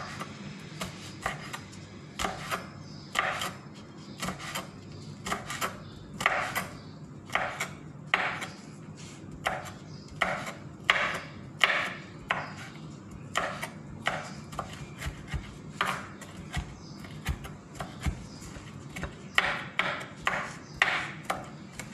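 Kitchen knife slicing an onion on a cutting board: a long run of knocks as the blade meets the board, about one or two a second, unevenly spaced.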